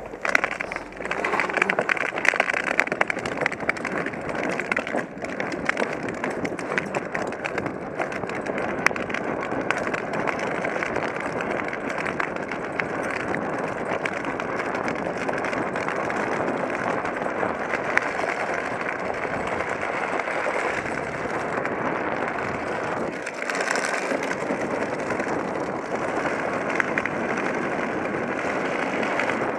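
Tricycle's hard wheels rolling fast over rough asphalt: a steady rushing, grinding road noise with many small clicks and knocks from the road surface, heard close up on the helmet-mounted camera with wind on the microphone.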